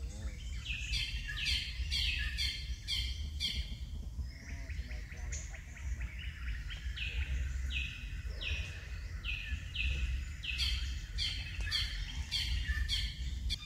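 A bird calling in three runs of quick, repeated notes, each note dropping in pitch, over a steady low rumble.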